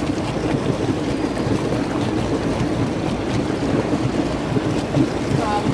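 Motorboat under way: its engine running steadily, with rushing water and wind on the microphone.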